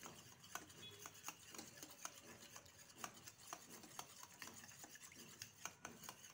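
A steel spoon stirring a wet spice paste in a small steel bowl: faint scraping with irregular light clinks of spoon against bowl, a few a second.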